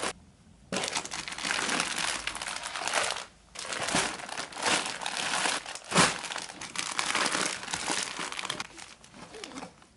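Plastic vacuum-seal compression bags packed with clothes crinkling and rustling as they are pushed and fitted into a hard-shell suitcase, with a short pause about three seconds in and one sharper crackle about six seconds in.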